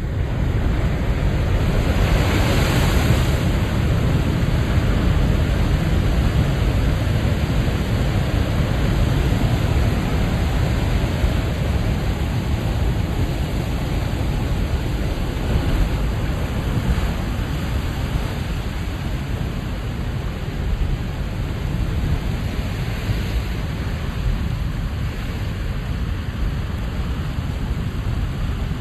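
Ocean waves breaking on a rocky shore at high tide: a steady, deep rumble of surf, with one wave washing in more loudly about two to three seconds in.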